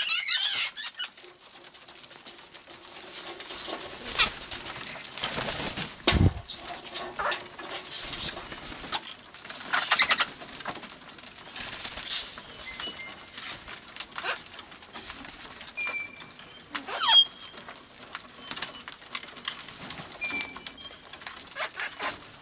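Parrots gathered to be hand-fed: wings flapping, rustling and clicking, with short high chirps and calls, a louder call about seventeen seconds in, and a heavy bump about six seconds in.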